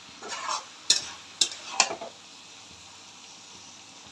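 A utensil stirring and scraping in a steel pot of frying fish and potato mixture, four or five strokes in the first two seconds, then a faint steady sizzle.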